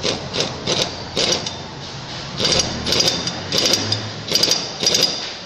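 Pneumatic impact wrench hammering on the clutch centre nut of a Bajaj Pulsar RS200 engine, trigger pulled in short bursts: about four in the first second and a half, then after a pause of about a second another five or so in quick succession.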